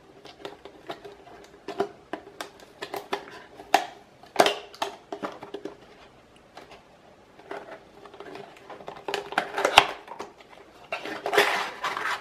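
Fingers picking, tapping and scratching at a small cardboard CPU retail box, a scatter of short clicks and scrapes. Near the end a longer rustling scrape of cardboard as the box opens and the inner cardboard tray slides out.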